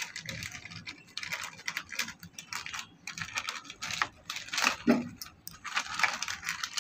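Thin plastic sheet crinkling and rustling in irregular crackles as hands roll a soft chicken-mince log up inside it.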